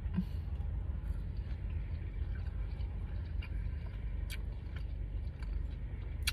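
A person chewing a mouthful of sandwich, with scattered short wet clicks, over a steady low hum.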